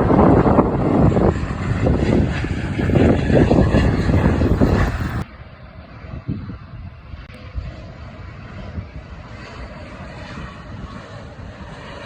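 Aircraft engine noise mixed with heavy, gusting wind buffeting on the microphone, cutting off abruptly about five seconds in to a quieter, steadier aircraft sound.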